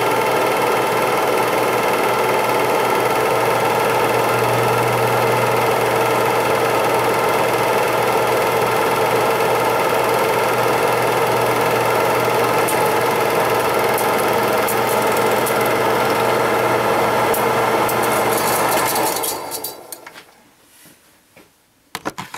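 8mm film projector running, a steady mechanical clatter over a motor hum; it dies away about nineteen seconds in, and a few faint clicks follow near the end.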